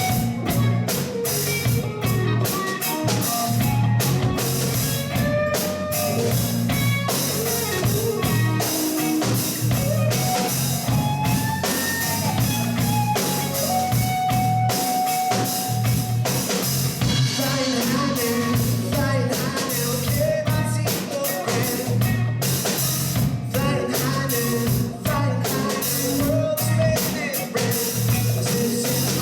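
Live rock band playing an instrumental section: a lead electric guitar solos with bending notes over a steady drum kit and bass.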